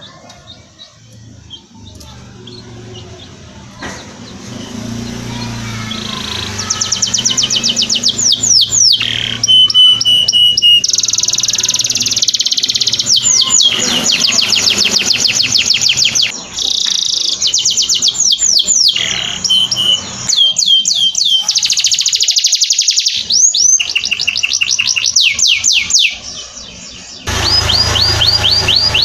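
Domestic canary singing long, fast trills of rapidly repeated down-sweeping notes, with brief pauses between phrases. The song is faint for the first few seconds, then grows loud.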